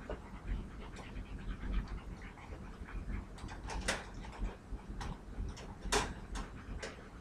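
Wire dog crate rattling and clinking in scattered sharp metal clicks, with a cluster about halfway through, as a Golden Retriever puppy mouths and nudges the crate door from outside.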